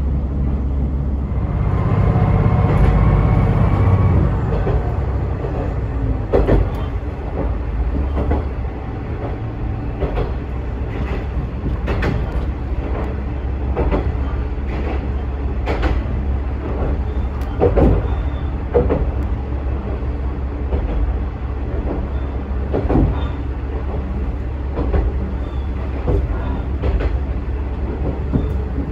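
Diesel railcar running along the track, heard from on board: a steady low engine drone, louder for the first few seconds and then easing, with the wheels clacking over rail joints every couple of seconds.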